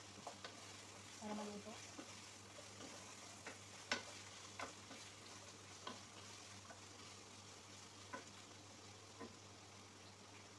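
Wooden spoon stirring chicken and vegetables frying in a large pot, with a faint steady sizzle and sharp knocks of the spoon against the pot every second or two. The loudest knock comes about four seconds in.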